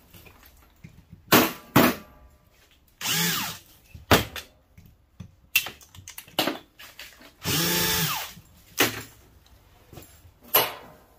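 DeWalt cordless drill running on a gas valve's fasteners in short trigger bursts. Two longer runs, about a third of the way in and again about two-thirds in, spin up and wind back down. Between them come sharp knocks and clicks of metal parts being handled, the loudest two near the start.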